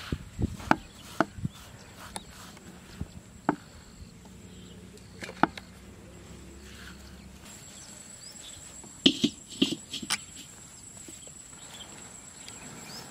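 Scattered sharp knocks and taps from a stone grinding roller and slab (ammi kal) while turmeric is ground and gathered by hand, with a cluster of knocks near the end. A steady high insect chirring comes in about halfway through.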